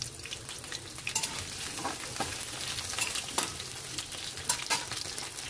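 Potato chunks frying in hot oil in a kadai: a steady sizzle with scattered crackles. A metal spatula clicks and scrapes against the pan as the pieces are turned.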